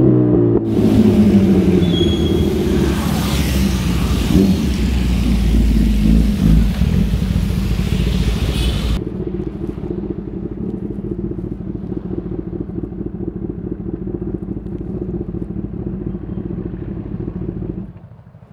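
Kawasaki ZX-10R inline-four engine slowing as the bike rolls off, under wind and road noise, then idling steadily once stopped. It is switched off near the end. There is little exhaust popping as it slows.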